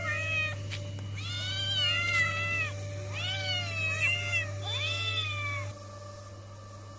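A cat meowing: a short mew, then three long drawn-out meows that rise and fall in pitch, over a steady low hum that stops a little before the end.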